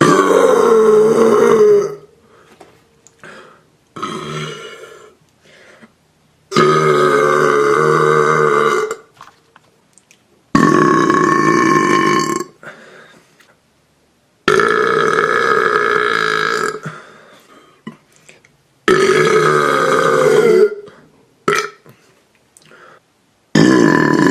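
A man burping on purpose: six long, drawn-out belches of about two seconds each, roughly every four seconds, with a few short, quieter burps in between.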